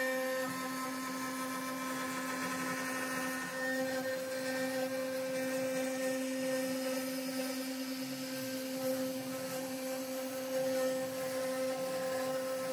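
CNC router spindle running at a steady speed, set to 10,000 RPM, while a 1/8-inch two-flute flat end mill rough-carves white pine. It is a steady whine over a rushing cutting noise.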